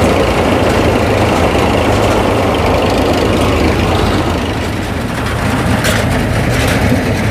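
Tractor diesel engine running steadily with the mounted Vikas 325 mini combine harvester, a low hum under dense mechanical clatter, easing slightly after the middle.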